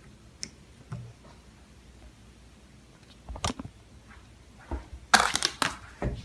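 Slime being handled, with scattered sticky pops and clicks, then a loud crackly run of pops about five seconds in.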